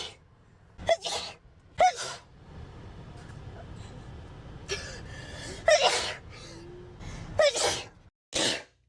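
A series of about five sharp sneezes from young women, one after another, some with a gasping breath drawn in before the sneeze.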